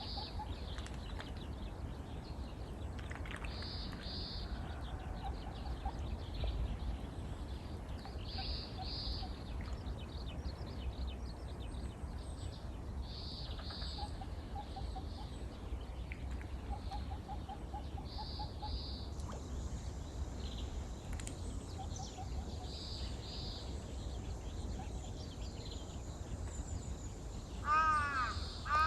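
Wild birds calling: a high two-note call repeats about every five seconds, with short, low, rapid trills in between, over a steady low rumble. Near the end a crow caws loudly several times.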